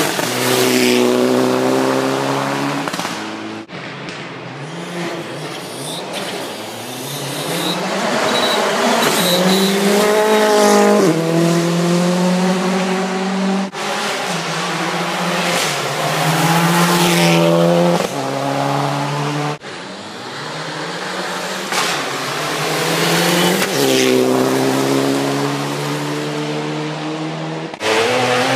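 Rally cars at full speed on a gravel stage, several separate passes one after another, engines revving hard with the pitch climbing and dropping back at each gear change. Each pass ends abruptly.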